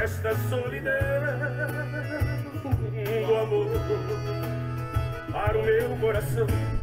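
Country-style song with guitar and a melody over a strong, deep bass line, played back through an NHL VL3400 PA system of subwoofers with top speakers and picked up by a microphone in front of them.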